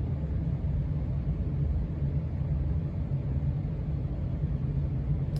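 1993 Casablanca Stealth ceiling fan running steadily at speed 4, a low rumble of the spinning fan and its moving air.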